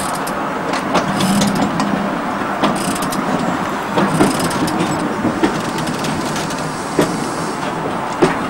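Passenger coaches rolling slowly past on the railway: a steady rumble of wheels on track, with sharp clicks and knocks about once a second.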